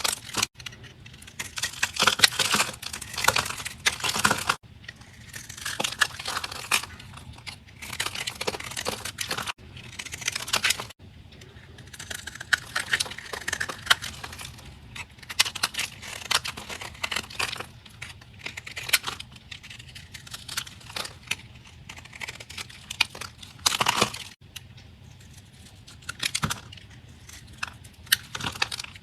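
Knife cutting through crunchy dried soap: a series of crackling, crunching cuts, each a second or two long with short pauses between, one sharper cut coming about 24 seconds in.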